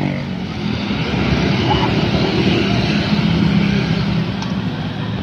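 Steady stream of motor scooters and small motorcycles riding past, their engines humming together over tyre noise, easing off a little near the end.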